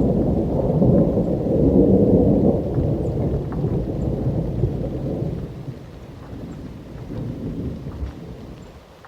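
A long rolling rumble of thunder, loud for the first few seconds and then dying away toward the end, over light rain with a few faint drop ticks.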